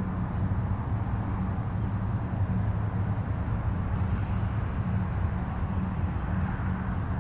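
Distant highway traffic: a steady, even rumble of many vehicles with a low hum, no single passing car standing out.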